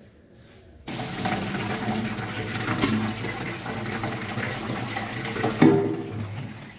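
Tap water running hard onto a tray held under it in a kitchen sink while it is scrubbed with a sponge, starting suddenly about a second in. A sharp knock, the tray striking the sink, comes a little before the end.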